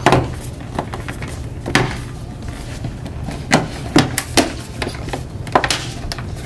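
Bottom cover of an HP Pavilion 15t laptop being pressed back onto the chassis, its retaining clips snapping into place one after another as a string of separate sharp clicks.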